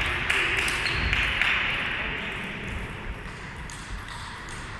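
Table tennis balls tapping in a sports hall: scattered light pings and taps of balls bouncing, over a steady hiss that slowly fades.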